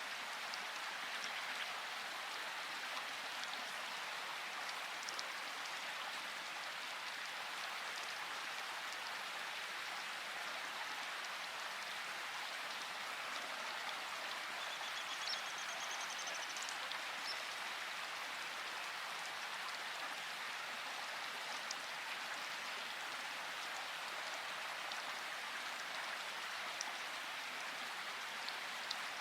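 Steady rainfall, an even hiss of rain with scattered individual drops ticking on a surface.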